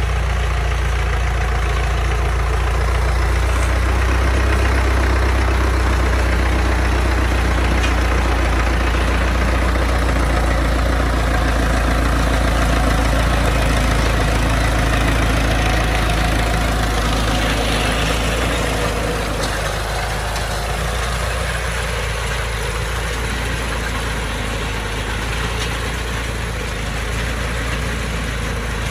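New Holland Ford 6610 tractor's diesel engine running steadily. The level drops a little about two-thirds of the way through.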